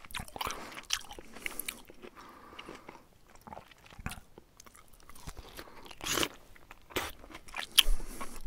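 A bear chewing and crunching its food in irregular bites, with louder crunches about six seconds in and near the end.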